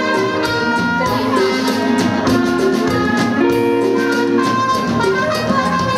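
Live dance band playing upbeat music, with brass horns over a drum kit and guitar.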